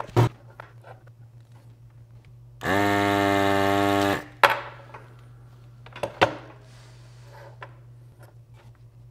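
Electric desoldering gun's vacuum pump buzzing steadily for about a second and a half, sucking molten solder off old header pins. It runs over a low steady hum, with a few sharp clicks before and after.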